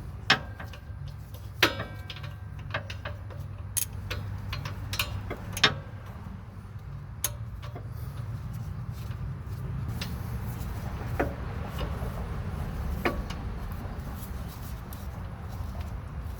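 Irregular metallic clicks and clinks of a 15 mm socket and wrench being fitted and worked on the lower shock bolt, a few ringing briefly. The clicks come thick in the first half and thin out later, over a steady low hum.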